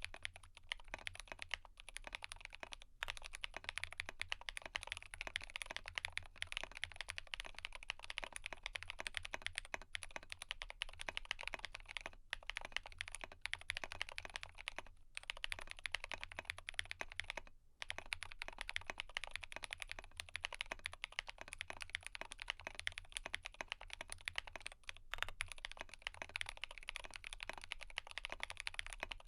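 Continuous fast typing on a GMMK Pro mechanical keyboard with Glorious Panda tactile switches, dense keystroke clacks broken by a few brief pauses.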